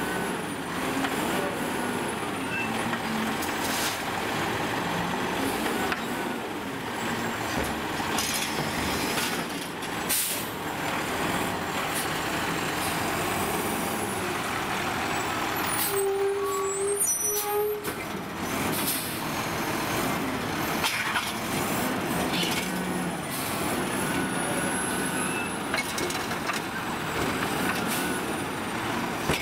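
Heil 7000 automated side-loader garbage truck working its hydraulic arm to grab, lift and dump a trash cart, its diesel engine running steadily under load. A few sharp knocks sound from the arm and cart.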